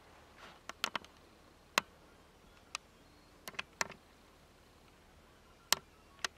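A series of about ten short, sharp clicks at irregular intervals, some in quick runs of two or three; the loudest come about two seconds in and near the end.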